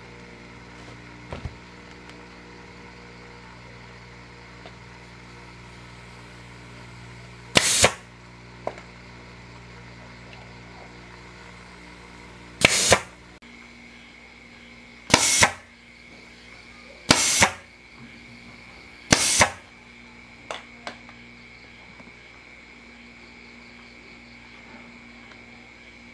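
Pneumatic staple gun firing five times, a few seconds apart, the first about eight seconds in, driving staples through a motorbike seat's vinyl cover into its plastic seat base. Each shot is a short, sharp double snap.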